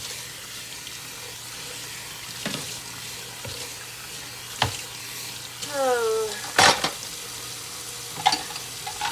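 Dishes and utensils knocking and clinking in a kitchen sink during hand dishwashing: scattered sharp clinks, with one loud clatter about two-thirds of the way through.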